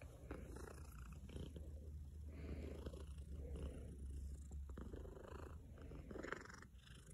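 Persian cat purring, a soft steady low purr that swells and fades about once a second.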